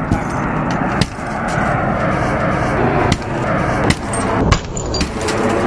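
Several sharp blows on a car's already cracked windshield as it is smashed, over a steady rough noise.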